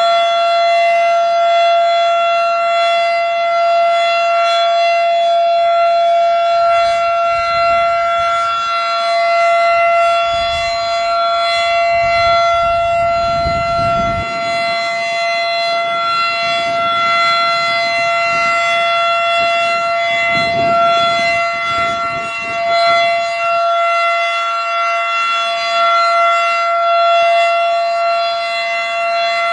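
Federal Sign & Signal Model 7 outdoor warning siren sounding a steady full-alert tone, its pitch held constant while its loudness swells and dips slightly every few seconds. A low rumble comes and goes underneath through the middle.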